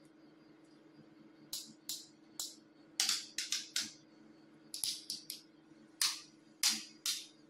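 Shimano trigger shifter on an e-bike's handlebar clicking through the gears: about a dozen sharp clicks in uneven groups, starting about a second and a half in.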